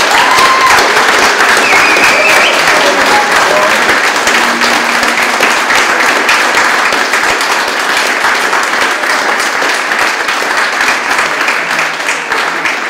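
A room of people applauding, loud at first and gradually dying down, with a few voices calling out in the first couple of seconds.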